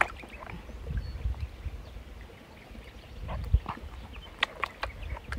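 Water sloshing and splashing as a plastic gold pan of river gravel is swirled and dipped in shallow water, with a cluster of small splashes near the end. A soft thump about three and a half seconds in.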